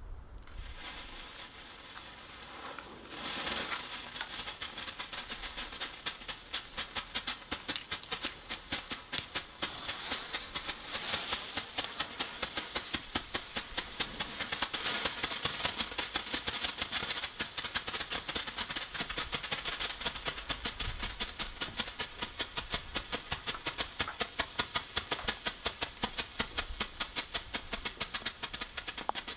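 Small consumer firework burning with a steady hiss and dense, rapid crackling that picks up about three seconds in and keeps going for nearly half a minute.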